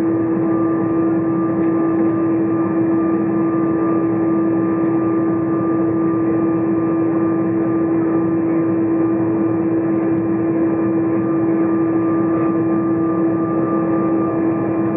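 Steady cabin noise inside an Airbus A320 taxiing on the ground: an even rushing sound with a constant hum held throughout.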